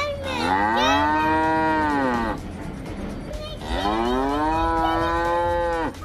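Two long, drawn-out moo-like calls, each about two seconds, rising in pitch at the start and dropping away at the end, with a short pause between them.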